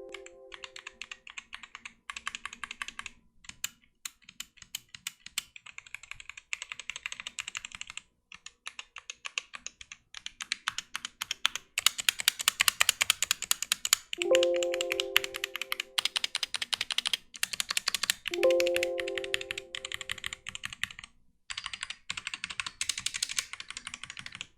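Fast typing on a mechanical keyboard fitted with double-shot PBT pudding keycaps, as a typing sound test: rapid key clacks in runs separated by short pauses. Twice near the middle, a short ringing tone sounds and fades over about a second.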